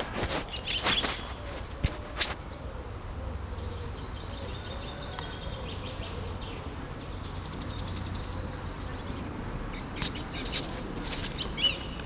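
Wild birds singing outdoors: short high chirps, a rapid trill of repeated notes in the middle, and more chirping notes near the end, over a steady low rumble.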